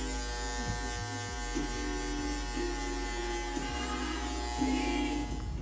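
Cordless electric hair clippers running with a steady buzz.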